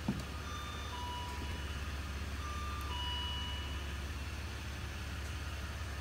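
The pontoon boat's aluminium gate clicks as it swings open, then the Marine Guard alarm system gives a few faint electronic beeps, alternating between a lower and a higher pitch, over the next few seconds: its warning tones as the door sensor is tripped.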